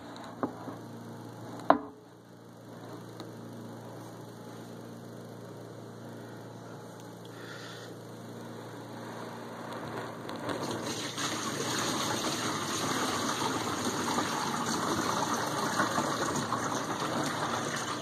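Whirlpool dishwasher running: a steady low hum with a sharp click about two seconds in, then from about ten seconds in water rushing and spraying inside the tub, growing louder and holding.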